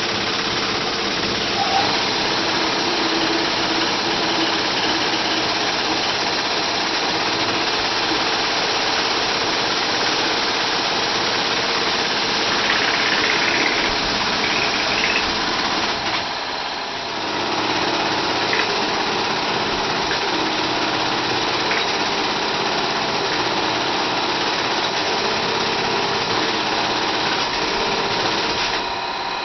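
Computer-controlled tufting machine running steadily as its tufting gun punches yarn into the backing cloth: a dense mechanical buzz with a thin steady whine over it, dipping briefly about halfway through.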